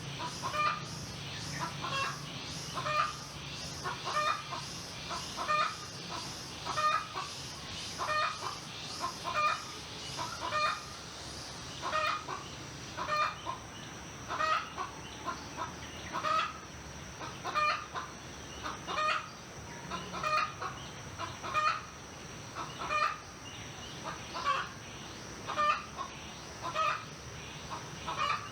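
A chicken clucking in a long, even run of short calls, a bit more than one a second. Underneath runs a steady high-pitched hum, and a fast high pulsing that stops about twelve seconds in.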